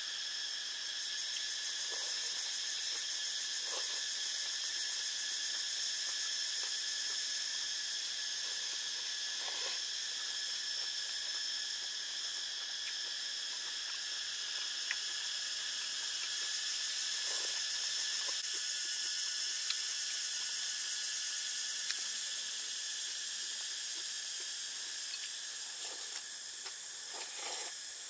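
Steady, high-pitched drone of forest insects, with a few brief eating sounds from a man eating noodles from a bowl with chopsticks, a small cluster of them near the end.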